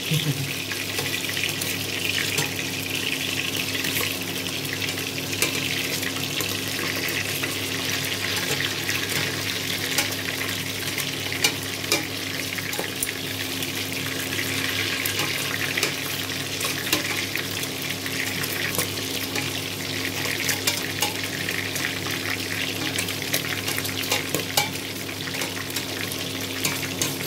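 Pork belly cubes frying in hot oil in a stainless steel pot: a steady sizzle with scattered pops and crackles. Tongs knock and scrape against the pot now and then as the pieces are turned.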